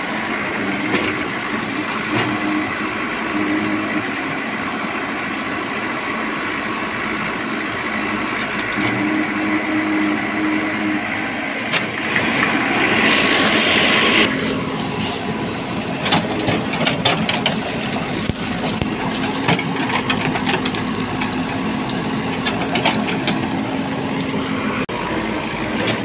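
JCB 3DX backhoe loader's diesel engine running under load while the machine works at pulling out bamboo. There is a louder hissing surge about twelve seconds in, then scattered sharp cracks and clicks.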